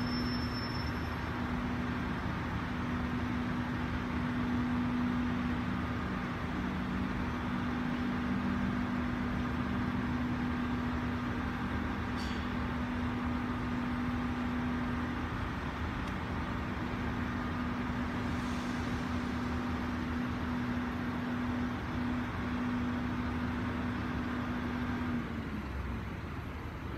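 JR Central KiHa 75 diesel railcar standing with its diesel engines idling: a steady low hum with a whining tone over it. Near the end the whining tone winds down and stops, while the engine hum carries on a little quieter.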